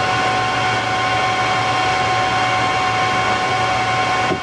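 Steady whir of the cooling fans in a running server rack and its APC Smart-UPS, with several fixed whining tones over a low hum.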